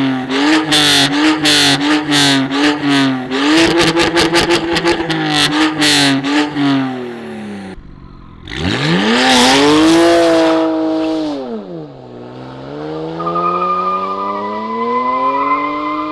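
BMW 335i E92's turbocharged straight-six with a catless exhaust, held high near the limiter with rapid crackling for the first seven seconds or so. After a short break the revs shoot up and fall back, then climb steadily again. A high steady squeal joins near the end.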